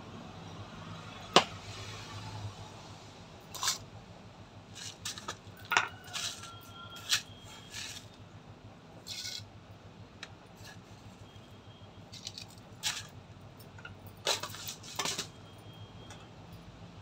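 Kitchen containers and steel utensils being handled, with about a dozen scattered sharp clicks, knocks and clinks. Some clinks ring briefly like steel, and the loudest comes about a second in. A low steady hum runs underneath.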